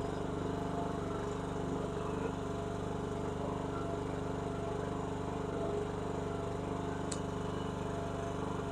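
Chinese mini skid steer's engine running steadily at a constant speed.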